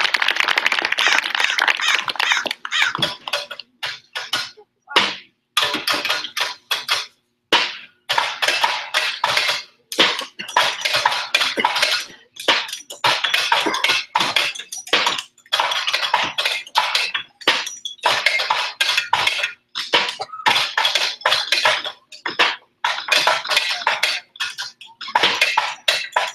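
Metal wheelbarrows played as percussion instruments by a group of children: irregular, stop-start metallic clattering and rattling in quick bursts with short breaks between them.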